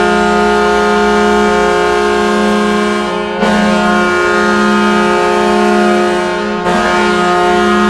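NHL arena goal horn sounding one long, steady, loud chord, with brief dips about three and a half seconds in and again near seven seconds.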